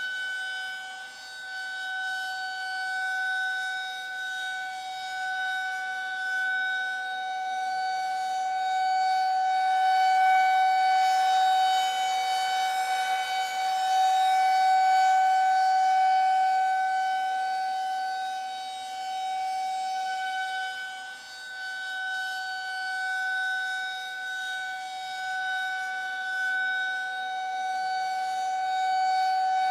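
Air-raid warning siren sounding one steady, held tone with strong overtones. Its loudness slowly swells and fades without the pitch changing, with dips about a second in and again about two-thirds of the way through.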